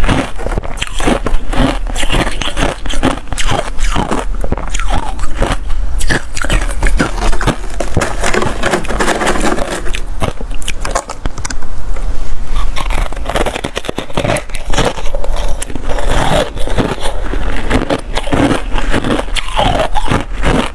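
Freezer frost being bitten and chewed close to the microphone: a dense run of crisp crunches and crackles, with frost scraped and gathered up by hand in between.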